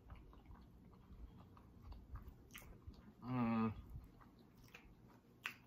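Quiet chewing and small wet mouth clicks from a person eating fried fish. About three seconds in comes a short hummed voice sound from the eater.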